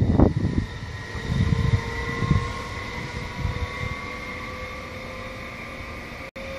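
SÜWEX Stadler FLIRT electric multiple unit pulling away after passing close by: its running noise fades into the distance, leaving a faint steady whine, with a few low gusts of wind on the microphone.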